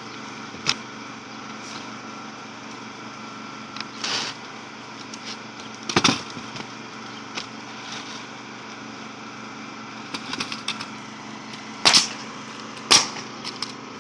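Pneumatic roofing nail gun firing nails through asphalt shingles, single sharp shots at irregular intervals with a quick run of shots about ten seconds in, over a steady motor hum.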